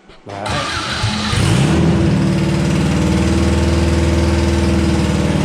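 Honda K20 four-cylinder engine starting: a brief crank, then it catches about half a second in, revs up, and settles into steady running by about two seconds in, on old, stale fuel.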